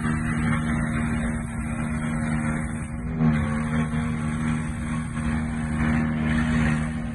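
Mahindra tractor's diesel engine running hard with a steady drone, its pitch stepping up slightly about three seconds in.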